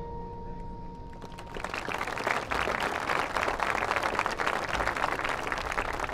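The tail of a marching band's final brass chord fades out, then the audience in the stands applauds, the clapping starting about a second and a half in and continuing.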